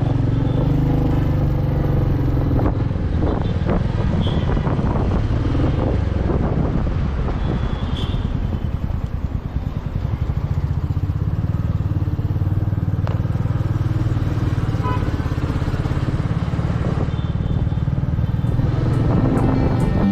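Royal Enfield Meteor 350's single-cylinder engine running steadily on the move, with wind and road noise. The engine eases off briefly about halfway through.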